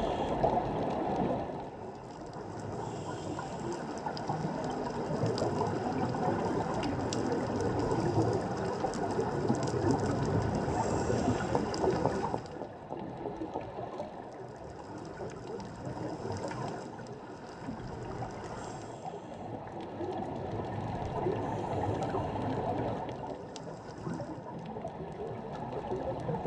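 Underwater ambience picked up by a GoPro in its waterproof housing: a steady, fluctuating rush of water noise with faint scattered crackling. It is louder for the first twelve seconds or so, then drops to a quieter level.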